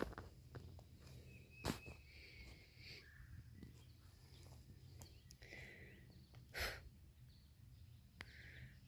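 Quiet outdoor ambience: a low steady rumble, a few faint short chirps, a sharp click about two seconds in and a brief rustle-like burst near seven seconds.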